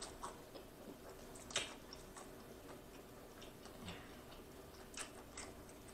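Close-miked chewing of a mouthful of lobster meat: soft, wet mouth clicks and smacks at irregular intervals.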